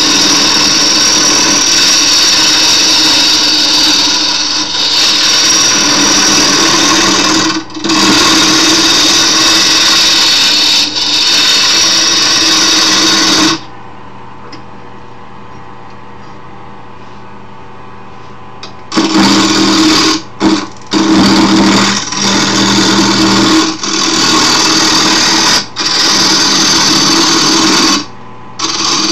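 Wood lathe spinning a wooden handle blank while a tool is held against the wood, making a loud steady hiss over the motor's hum. The cutting stops for several seconds about halfway through, leaving only the quieter hum of the lathe, then resumes with a few short breaks as the tool is lifted and set back.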